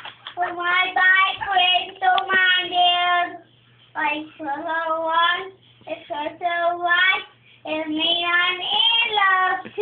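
A boy singing alone in a high voice, holding long notes in phrases with short breaks between them and no music heard behind him. He is singing along to a song playing only in his earbuds.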